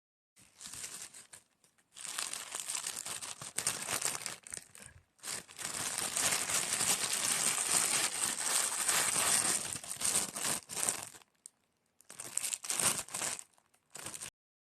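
Plastic packaging crinkling as it is handled, in several bursts with short pauses between them; the longest stretch lasts about six seconds.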